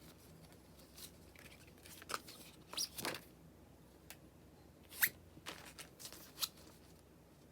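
Merchandise packaging being handled: a string of short crinkles and clicks, the loudest about three and five seconds in.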